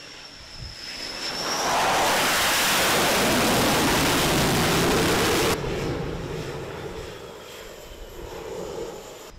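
F/A-18 Super Hornet jet engines on a carrier flight deck: a jet roar that swells to a loud, even rush, drops off suddenly about halfway through, then carries on as a lower jet noise with a faint high whine.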